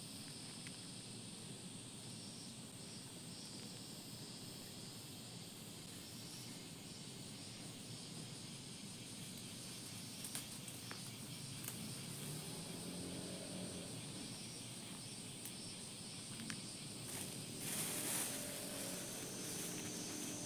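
Summer insects buzzing in a steady, high, shimmering drone, with a few small clicks and a short rustle about three quarters of the way through.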